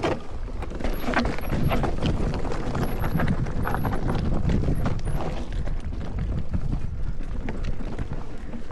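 Electric mountain bike rolling over rough singletrack: tyres crunching on dirt and roots, with a steady low rumble and a stream of small knocks and rattles from the bike.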